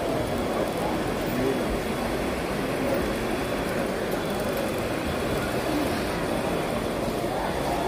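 Steady hall din: a murmur of many voices mixed with the running of radio-controlled model trucks and tractors.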